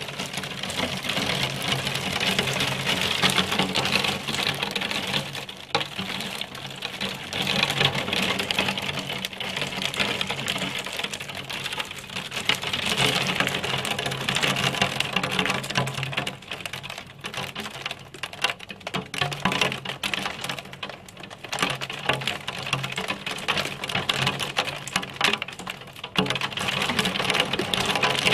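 Hailstones pelting window glass in a violent hail storm: a dense, rapid clatter of small hits that swells and eases in waves, with a steady low hum underneath.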